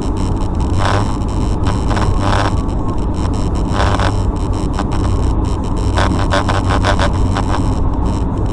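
Steady low rumble of a car driving at highway speed, heard from inside the cabin through a dashcam microphone, with a few brief mid-pitched sounds now and then.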